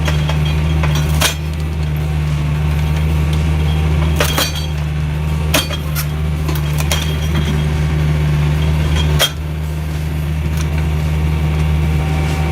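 A log-splitting machine's engine running with a steady low drone, with a few sharp knocks and clinks of wood. One knock comes about a second in, several between four and six seconds, and one near nine seconds, where the drone dips slightly.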